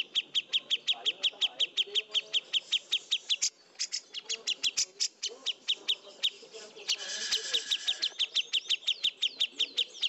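Recorded songbird song of the kind used as masteran, the tutoring track played to Indonesian contest birds: a fast, even string of high chirps, about five a second. The chirping breaks off briefly about three and a half seconds in, a harsh buzzy call joins it about seven seconds in, and short falling whistles follow near the end.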